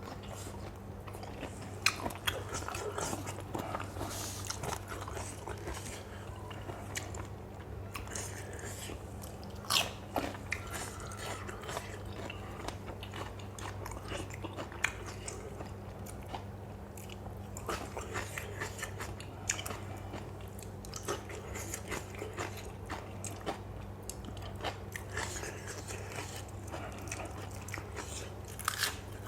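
Close-up chewing and crunching of a mouthful of spicy pounded lotus-stem salad with fresh shrimp, with crisp bites scattered throughout, over a steady low hum.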